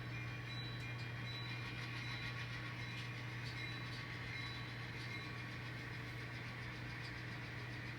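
Simulated diesel engine sound from an N scale locomotive consist's sound decoders, a steady low drone.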